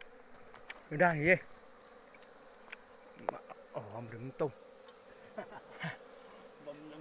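Bees buzzing as they fly close past the microphone, several separate passes with a wavering pitch, the loudest about a second in. They are bees disturbed from a wild nest cut open in a hollow tree trunk.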